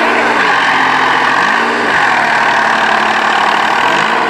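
New Holland 60-66S tractor's diesel engine running under load in deep mud. Its pitch rises and falls back about every two seconds as the engine revs and eases off.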